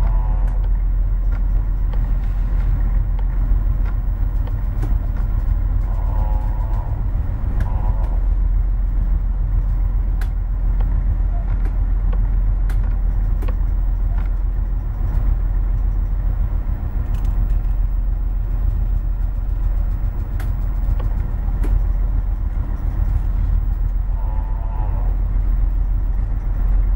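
Steady low rumble of the car ferry Strynboen's engine running under way in rough water, with scattered faint clicks.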